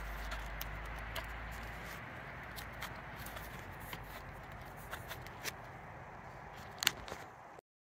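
Gloved hands handling a copper refrigerant line and its brass flare nut: scattered light clicks and rustles, with one sharper click near the end, over a steady low rumble. The sound cuts off abruptly just before the end.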